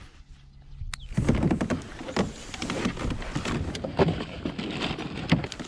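Rummaging through a kayak's rear storage crate: plastic tackle boxes clacking and gear bags rustling, a busy run of irregular knocks and rustles starting about a second in after a single sharp click.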